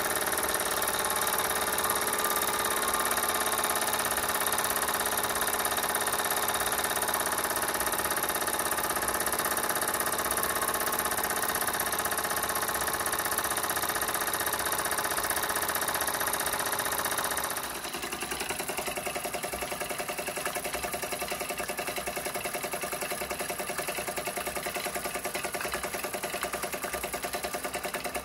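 Jensen 25GR model steam engine running steadily, driving small belt-driven generators and workshop accessories. About 18 seconds in the sound drops somewhat and turns into a faster, finer, even rhythm.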